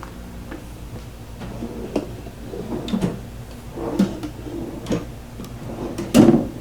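Cabinet drawers being pulled out and pushed back on ball-bearing drawer slides: a run of short rolling rattles and knocks about a second apart, with a louder thump about six seconds in as a drawer closes.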